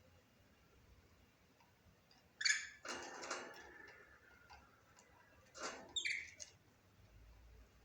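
Budgerigar giving short, harsh chirps in two brief clusters, about two and a half seconds in and again near six seconds, with faint clicks between.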